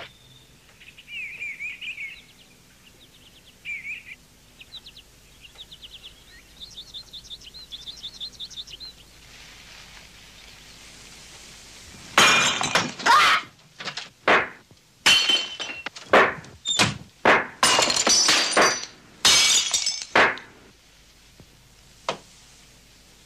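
Bird-like chirps and fast trills, then, about halfway through, around a dozen loud crashes in quick succession over some eight seconds, ringing like breaking glass.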